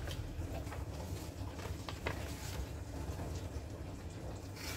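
A sheet of printed paper rustling as it is handled against a kitchen knife's edge to test its sharpness, with a few light ticks.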